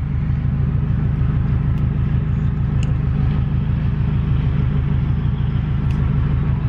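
Turbocharged Subaru's flat-four engine running, heard inside the cabin as a steady low drone.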